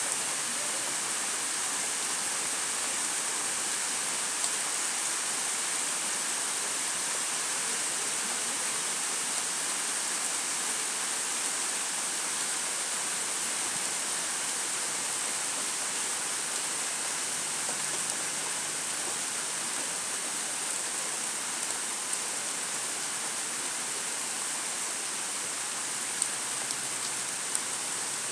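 Steady, even rainfall hiss with a few louder single drop hits.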